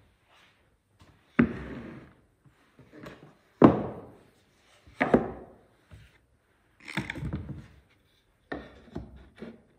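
Wooden panels knocked against each other and set down on a wooden workbench as they are stacked: three sharp knocks in the first half, a longer rough scrape of board on board about two-thirds through, then a few lighter taps near the end.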